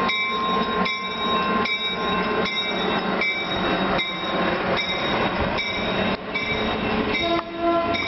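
Caltrain commuter train rolling past, its wheels clicking over rail joints in an even rhythm of about one click every three quarters of a second over a steady rumble, with a brief tone near the end.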